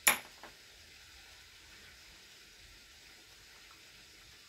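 A single sharp knock right at the start, then a faint click about half a second later, over a faint steady hiss.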